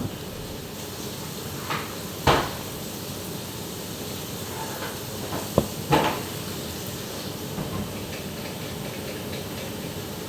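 A few scattered kitchen knocks and clunks, like a cupboard door and pots being handled, over a steady hiss.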